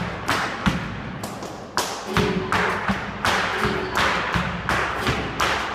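Flamenco footwork and palmas: the dancer's shoe heels and soles stamp the stage floor in a quick, uneven run of thuds and taps, mixed with sharp handclaps, over faint flamenco guitar notes.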